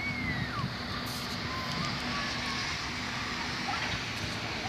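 Steady outdoor hiss with a low rumble, and a few short bird chirps cutting through it, the first a falling whistle right at the start.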